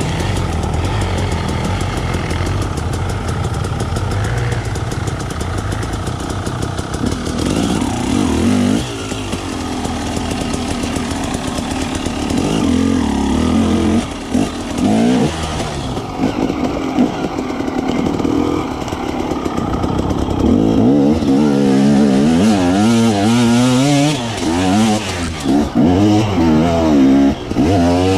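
Enduro dirt bike engines running hard off-road, the pitch rising and falling with the throttle. In the last several seconds they are revved up and down quickly in short bursts.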